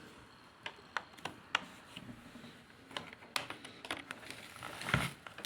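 Small clicks and ticks of a USB cable being handled and plugged into an audio interface, with a dull thump about five seconds in.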